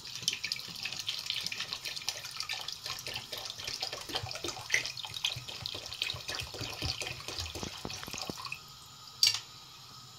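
Water pouring from a glass bottle into a large aluminium pot of sugar, a steady splashing trickle that stops about eight and a half seconds in: a litre of water going onto two kilos of sugar for syrup. A single sharp click follows near the end.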